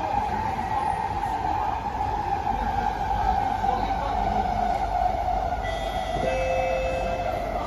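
Inside a moving SMRT C151B metro train: steady rumble of wheels and running gear with a strong whine that sinks slightly in pitch. A few thin high tones come in near the end.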